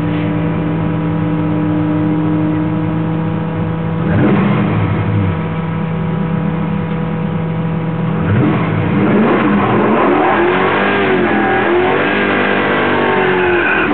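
Holden HQ Monaro GTS V8 idling steadily, heard from inside the cabin. It gives a quick rev about four seconds in and another about eight seconds in, then a run of revs rising and falling near the end.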